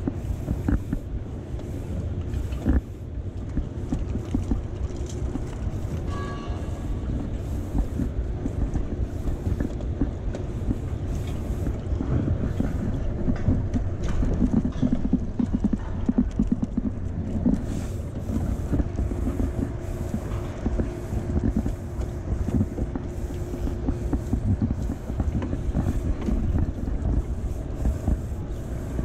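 Water slapping and knocking irregularly against the hull of a small boat, with wind rumbling on the microphone. A steady low hum runs underneath and fades near the end.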